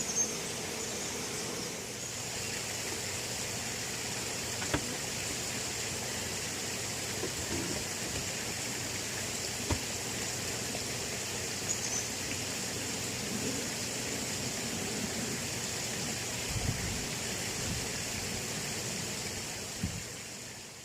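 Steady high-pitched drone of cicadas, with a few light knocks from wooden hive parts being handled. The sound fades out at the very end.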